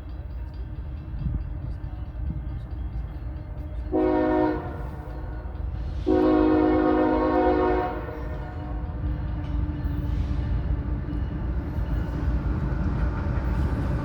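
Freight diesel locomotive's multi-chime air horn sounding a short blast about four seconds in, then a long blast about six seconds in, over the steady low rumble of the locomotives and train. The short-then-long pattern is typical of the end of a grade-crossing signal.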